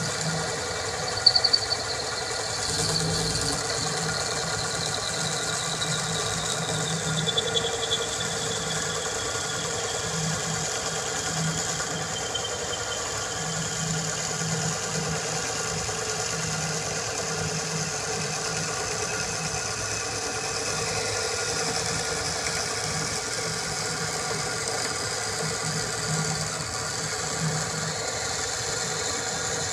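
Drill running steadily under load, spinning a hickory dowel through a dowel-cutting die that shaves it down from half an inch to 3/8 inch. A high whine slowly falls in pitch over the first dozen seconds, with a few sharp clicks about a second in.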